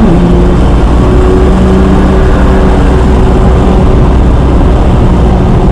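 Nissan GT-R's twin-turbo V6 running at a steady engine speed on track, its pitch dipping slightly at the start and then holding level under a loud, even rush of noise.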